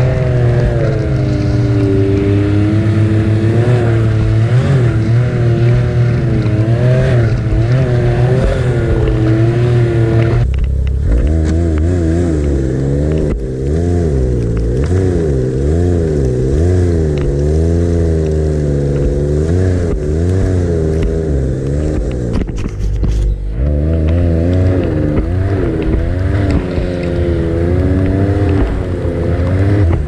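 Ski-Doo Expedition SE 900 Turbo snowmobile's turbocharged three-cylinder four-stroke engine running under load through deep snow, its pitch rising and falling again and again as the throttle varies. The sound changes abruptly about ten seconds in.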